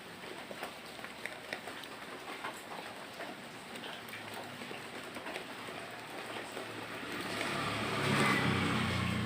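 Steady rain falling, with scattered drips ticking. From about seven seconds in, a low engine-like rumble swells up, peaks near the end and starts to fade, like a vehicle passing.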